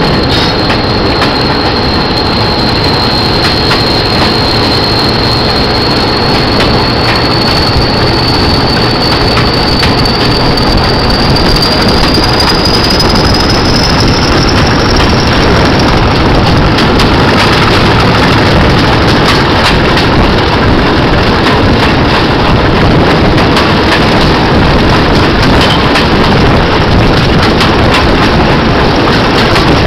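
English Electric Class 40 diesel locomotive D306 under way, its 16-cylinder engine running loud and steady, heard from the cab side window. Over roughly the first fifteen seconds a high turbocharger whistle, the sound that earned the class the nickname 'Whistlers', slowly rises in pitch as the locomotive picks up speed, then fades into the engine noise.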